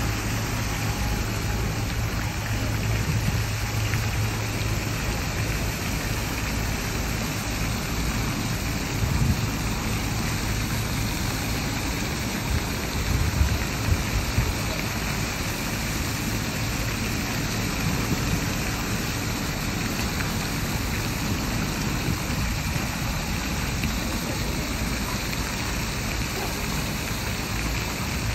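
Fountain water splashing steadily, with a low hum underneath and a few brief low thumps.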